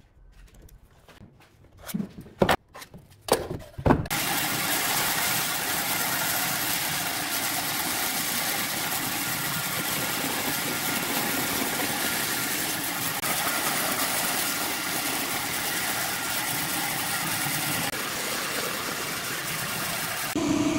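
A few light clicks and knocks, then, about four seconds in, a bandsaw comes in suddenly and runs steadily, its blade cutting through a pine board.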